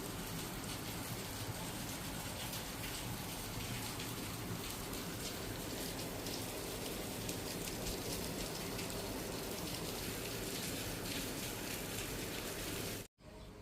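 Steady patter and hiss of heavy rain, which cuts off abruptly near the end.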